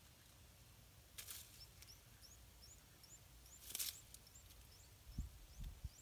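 Faint, high-pitched bird chirps: short rising notes repeated about three times a second, with two brief rustling hisses and a few low thumps near the end.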